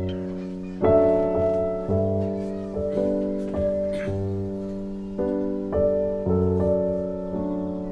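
Background piano music: a slow run of struck chords, each fading away before the next.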